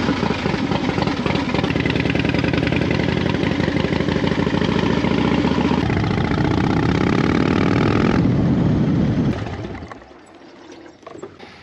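Harley-Davidson Fat Bob's V-twin engine running loud, rising in pitch as it revs up about six seconds in, then dropping away and fading out near the end.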